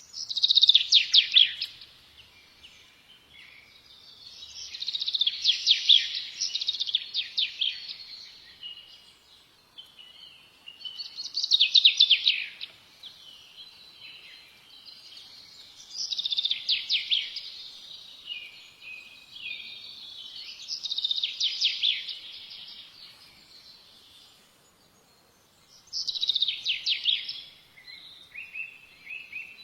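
A songbird singing phrases of fast, high trills and chirps, one phrase every four to six seconds, with softer twittering in between.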